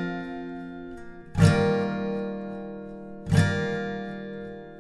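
Background music: an acoustic guitar strumming slow chords, one about every two seconds, each chord left to ring out and fade.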